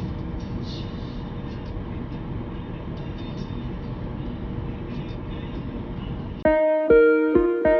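Steady low rumble of a car's tyres and engine heard from inside the cabin while driving on a snow-covered road. About six and a half seconds in, louder plucked guitar music starts suddenly.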